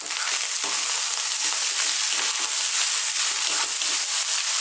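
Cold basmati rice with tofu and peas frying on high heat in a frying pan: a steady sizzle, with a wooden spatula stirring through it.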